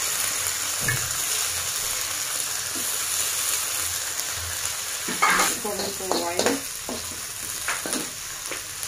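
Kimchi and green beans sizzling steadily in a hot wok as they are stir-fried with a metal slotted spatula, with the spatula scraping and tapping against the pan now and then.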